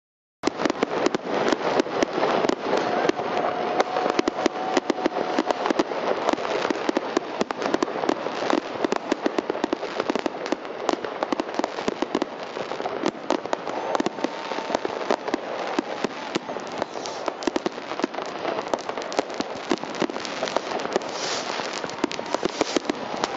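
Fireworks going off densely: a continuous rapid run of bangs and crackling from many aerial shells and firecrackers at once. It starts suddenly about half a second in.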